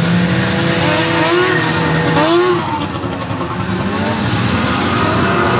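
Vintage snowmobiles running as they pull away and pass one after another, their engine pitch rising and falling as each goes by.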